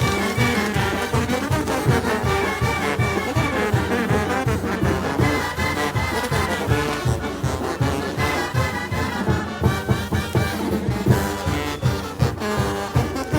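Mexican banda brass band playing live: trumpets and trombones carry the melody over a steady, quick low beat.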